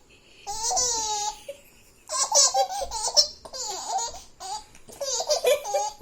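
A baby girl laughing in about four separate bursts, high-pitched and breathy.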